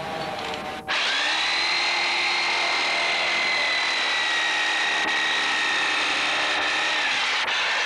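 A power tool comes in abruptly about a second in and runs steadily with a high whine, its pitch dipping slightly near the end.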